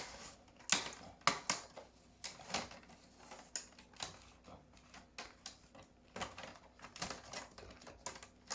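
Irregular light clicks and taps of a small screwdriver and the laptop's plastic parts being handled while the laptop is taken apart, roughly one or two sharp clicks a second.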